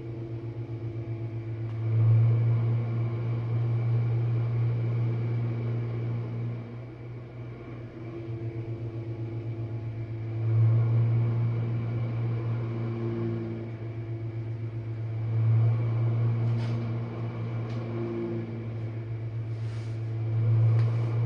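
Jenn-Air dishwasher running its main wash cycle: a steady low pump hum that swells louder every four to five seconds, with a fast fluttering pulse between the swells.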